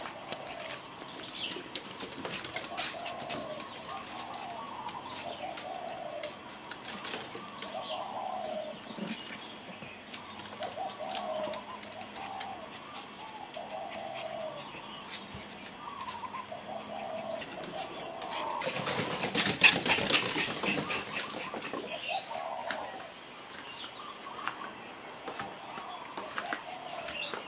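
Pigeon cooing over and over, short calls every second or two. About nineteen seconds in there is a louder, noisy burst lasting about two seconds, which sounds like wings flapping.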